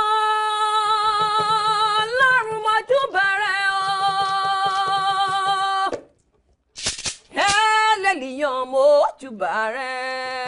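A woman singing long, held notes with a strong vibrato. She breaks off about six seconds in and starts again a second or so later.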